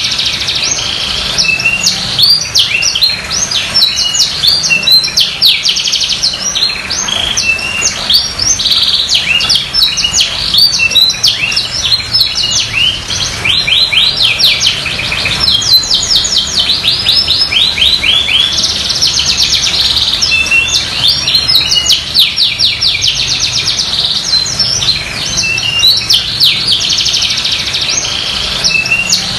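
Domestic canary singing a continuous, high-pitched song of fast trills and rolls, with only brief breaks. It is in full, steady song ("gacor").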